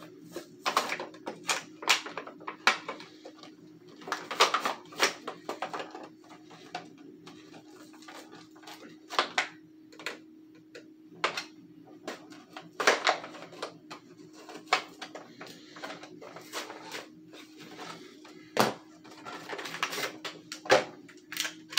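Plastic blister and cardboard packaging of an action figure being handled and pulled open: irregular crinkles, crackles and clicks, over a faint steady hum.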